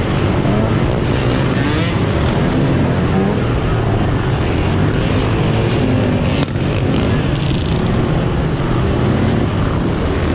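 Several dirt bike engines running and revving together, loud and continuous.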